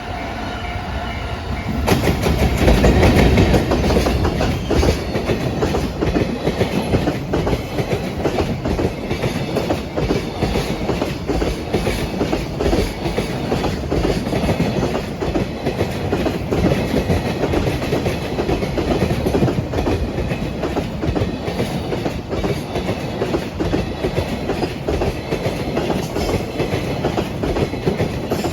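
A JR Freight EF210 electric locomotive passes close by about two seconds in, loudest at first. A long train of Koki container flatcars follows, with a steady clickety-clack of wheels over the rail joints. Before the locomotive arrives, steady tones are heard that fit the level-crossing warning bell.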